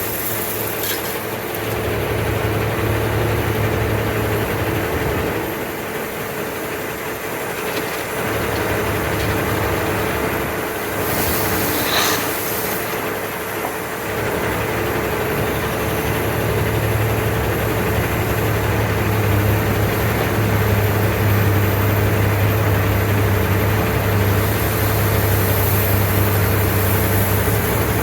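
Heavy diesel engine idling steadily, with a brief hiss about twelve seconds in.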